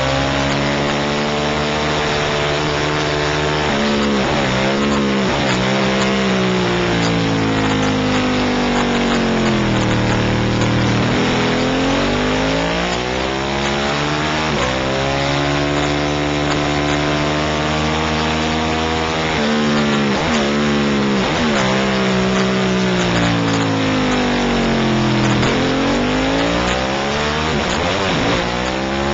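Racing motorcycle engine at full race pace, heard from the bike itself: revs climb through each gear and fall off sharply several times on downshifts into corners, over heavy wind rush.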